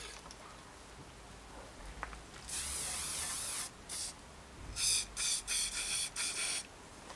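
Aerosol hairspray being sprayed onto the end of a bicycle handlebar: one hiss of about a second, a short one, then a run of about five short hisses. The spray wets the bar so the grip slides on, then holds it once dry.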